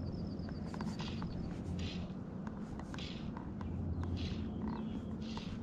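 Fly line being stripped in by hand through the rod guides during a retrieve: a soft swishing stroke about once a second.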